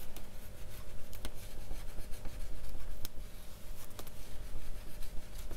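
Rubbing hard over a paper journal page to burnish a stuck-on sticker down firmly: continuous scratchy rubbing with a few light clicks.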